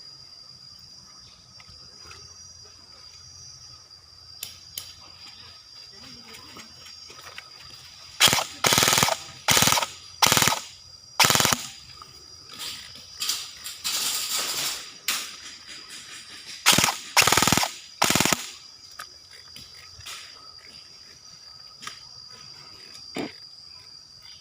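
Airsoft guns firing a series of short full-auto bursts, about ten in ten seconds, with one longer burst near the middle.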